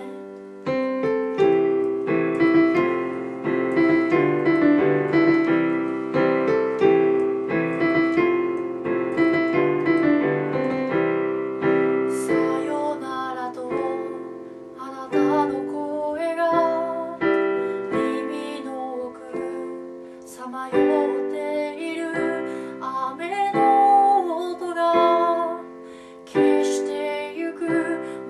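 A woman singing to her own accompaniment on an electronic keyboard with a piano sound, with chords played throughout and a wavering vocal line above them in places.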